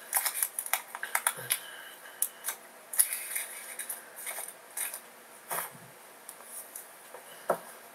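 Scattered clicks, taps and knocks of things being handled close to the microphone, with a few duller knocks now and then.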